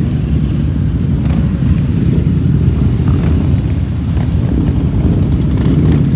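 A pack of Harley-Davidson V-twin motorcycles running at low speed as they ride past in a group, a steady, dense low engine sound.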